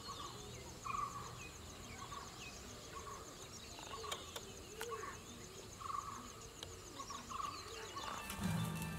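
Domestic chickens clucking on and off in a village yard, short calls every second or so over a steady high-pitched trill in the background. A low tone comes in near the end.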